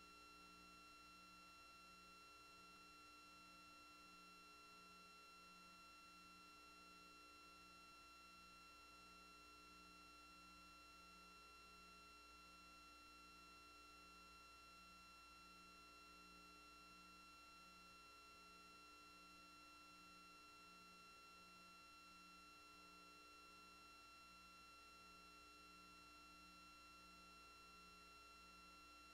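Near silence: only a faint steady electronic hum and whine, with a soft low pulse repeating about one and a half times a second, and no sound from the traffic.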